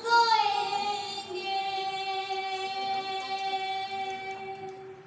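A woman's voice singing one long held note, sliding down in pitch at the start, then held steady and fading out near the end.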